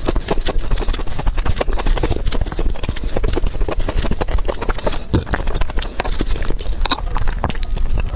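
Close-miked mouth sounds of fast eating: rapid, wet chewing and lip-smacking in a quick, uneven run of many small clicks a second.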